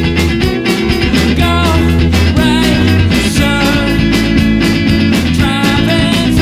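Rock music with electric guitar and a steady drum beat, and a wavering melody line carried by a voice or lead instrument.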